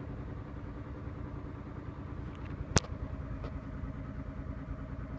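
Steady low rumble of a running engine with a faint hum. One sharp click a little past halfway is the loudest sound.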